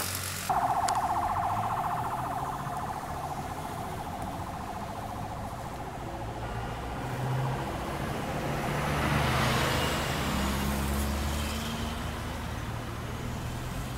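Road traffic: a coach and cars driving past with their engines running. A loud buzzing drone cuts in suddenly about half a second in and fades over several seconds, and a vehicle passes close about two-thirds of the way through.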